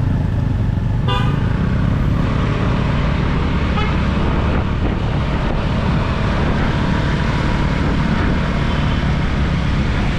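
Motorcycle ride in traffic: a steady low rumble of engine and wind, with a vehicle horn honking briefly about a second in and again, fainter, near four seconds.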